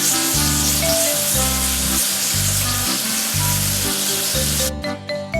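Steady hiss of a water spray jet, as from a pressure-washer hose washing a tractor, cutting off sharply near the end. Background music with a repeating bass line plays underneath.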